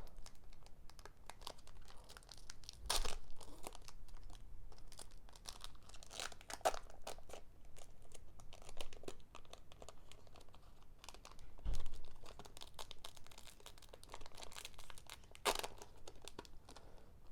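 Foil Pokémon card booster pack being crinkled and torn open, with the cards inside handled: irregular rustles and clicks, with a couple of louder crinkles and a low thump.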